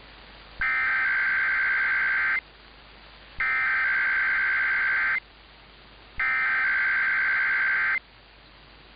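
Emergency Alert System SAME digital header: three loud bursts of buzzing, warbling data tone, each about two seconds long with about a second's gap between. They open an EAS message, here the header of a Required Weekly Test.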